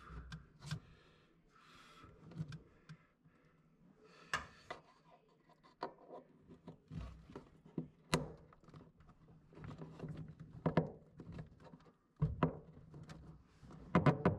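Irregular clicks, knocks and scraping as hands work the plastic mounting peg at the top of an LG front-loading washer's shock absorber, under the tub.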